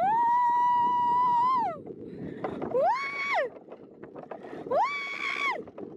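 A rider on an alpine coaster sled screaming: one long high scream of nearly two seconds, then two shorter screams that rise and fall. Wind noise sounds underneath throughout.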